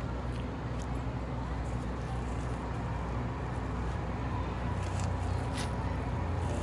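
Steady low mechanical hum, like an engine running nearby, over outdoor street noise, with a few short clicks, the clearest more than halfway through.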